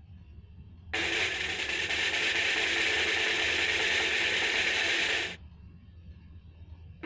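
A mechanical-sounding sound effect, like rapid ratcheting or gear clicking. It starts abruptly about a second in, holds steady and loud for about four and a half seconds, then cuts off suddenly, over a faint low hum.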